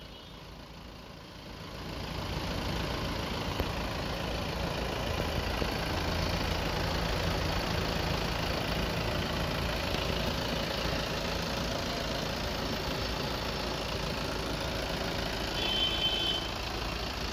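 Audi A6 engine idling steadily, growing louder over the first couple of seconds. A brief high-pitched tone sounds near the end.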